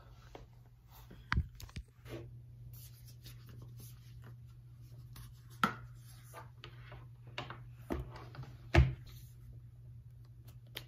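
Objects being handled: scattered taps and knocks with soft rubbing and scratching, the loudest knock about nine seconds in, over a steady low hum.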